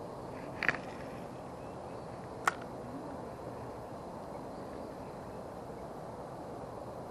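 A cast with a spinning rod and reel: a short noise under a second in, then one sharp click about two and a half seconds in as the reel's bail snaps shut, over a steady outdoor hiss.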